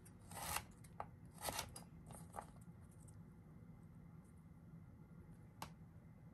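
Kitchen knife slicing burdock root lengthwise into sticks on a wooden cutting board: two short scraping cuts and a few knife taps in the first two and a half seconds, then quiet but for one tap near the end.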